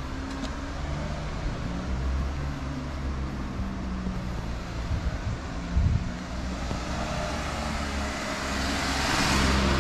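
Car driving slowly through a town street, its engine and tyres making a steady low hum inside the cabin. Near the end another car passes, a rising and fading hiss of tyres.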